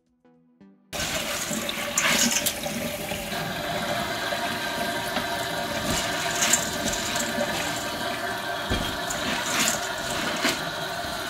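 Tap water running onto dried red speckled beans in a stainless-steel colander in a sink, while hands rub and turn the beans to wash them. The water starts suddenly about a second in, with a few brief clatters over the steady splashing.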